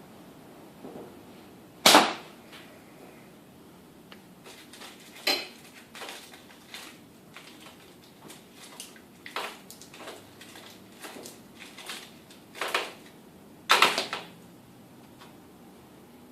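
Slingshot shooting small ammo at a target: five sharp snap-and-impact cracks a few seconds apart, the first the loudest, with quieter clicks of handling between shots.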